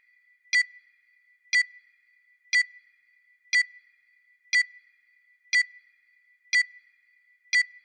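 Countdown timer sound effect: a short high beep once a second, eight in a row, each sounding one tick of the on-screen countdown.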